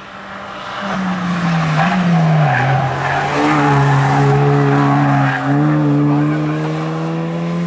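Hillclimb race car's engine getting louder as the car approaches. Its note drops about two seconds in, then holds and climbs slowly as it pulls up the hill.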